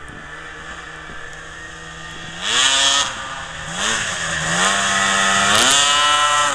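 Snowmobile engine, a 2004 Sno Pro race sled with a modified 800 two-stroke, running steadily at low revs. About two and a half seconds in it revs hard, blips a couple of times, then holds high revs before dropping near the end.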